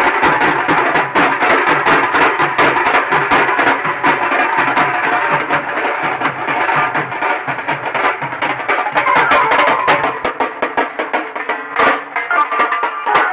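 A street band's marching drums, snare-type and side drums beaten with sticks in a fast, dense rhythm, with a melody running underneath.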